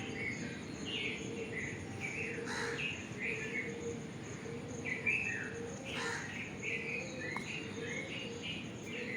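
Several songbirds chirping in short, rapid notes over a steady, pulsing high insect trill, with a lower steady drone beneath.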